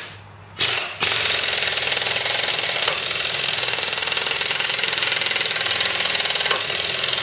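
Impact wrench hammering on the forcing screw of a ball joint press, pushing a worn lower ball joint out of its control arm. It gives two short bursts, then runs steadily from about a second in.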